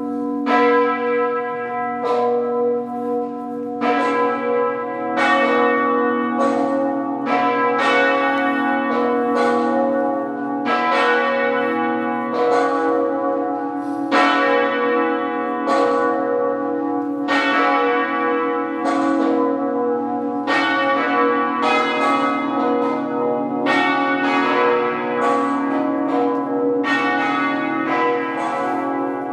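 Quebec cathedral's church bells ringing half-muffled for Sunday mass, a mourning peal. Strokes come about once a second, and their tones overlap into a continuous ringing hum.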